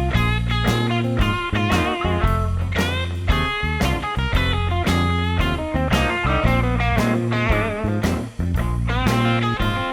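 Background music: a guitar-led instrumental with a steady bass line and plucked guitar notes.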